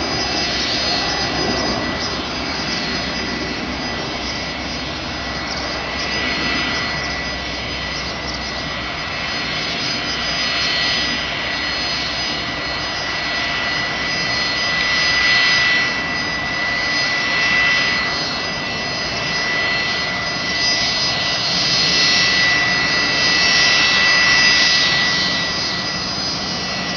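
Jet airliner engines running on the airfield: a steady high whine over a rushing noise that swells and eases every few seconds.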